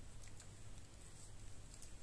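Faint, scattered light clicks and ticks of small hand-tool work on a laptop's hinge screws, over a steady low hum.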